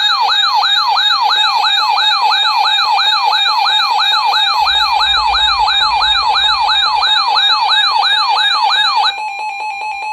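Electronic weather-alert siren: a tone sweeping up in pitch about three times a second over a steady tone, sounding for a flash flood warning. About nine seconds in the sweeping stops and a steady alert tone holds on alone.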